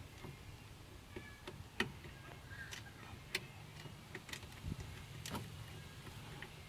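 Irregular small metallic clicks and light knocks from hand work on a van's sliding-door handle mechanism as bolts are fitted, over a steady low hum.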